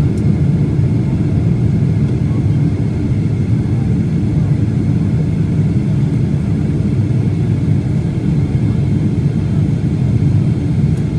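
Steady jet airliner cabin noise at a window seat by the wing-mounted engine: an even, low roar of engine and airflow, with a faint steady whine above it, as the plane flies low on its approach.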